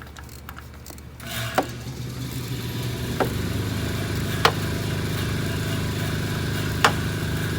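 A motor vehicle engine comes up about a second in and runs steadily, with four sharp clicks over it.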